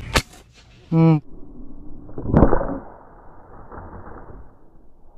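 Air rifle firing a dart at a fish: one sharp crack near the start. About a second later comes a short vocal exclamation, then a second sharp hit with a brief rush of noise.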